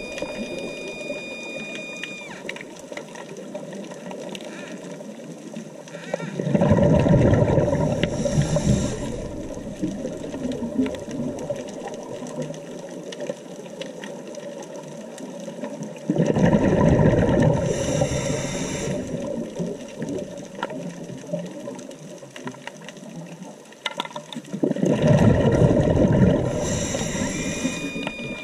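Scuba diver's breathing heard underwater through the camera housing: three loud bubbling exhalations, about nine seconds apart and each lasting a few seconds, each with a short high hiss of the regulator near its end, over a steady wash of water noise.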